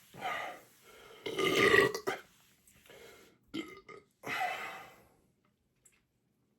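A man belching, about five burps in a row, the loudest and longest about a second and a half in: gas coming up from a belly full of quickly chugged soda.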